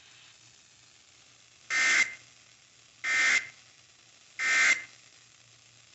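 Emergency Alert System digital data tones played three times over FM radio: the end-of-message code that closes the alert. Each is a short, raspy, buzzy screech under half a second long, about 1.3 seconds apart.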